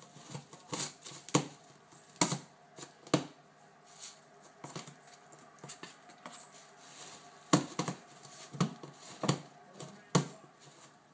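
A cat pawing and scratching at a cardboard storage box and dragging ribbon and paper out of it: irregular sharp taps, scrapes and rustles, some a fraction of a second apart and others about a second apart.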